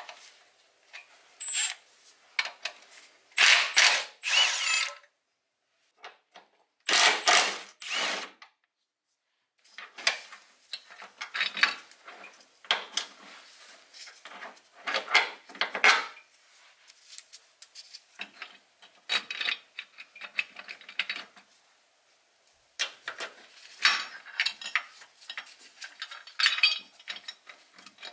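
Cordless power tool running in about five short runs during the first eight seconds, spinning out the bolts and nuts on a bracket. After that come many short, irregular clicks and clinks of hand tools and metal parts being worked and handled.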